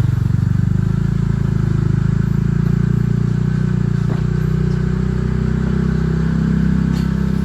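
Ranger utility vehicle's engine running steadily at low speed while it drives along a rough trail, its pitch shifting slightly, with a couple of short knocks from the ride.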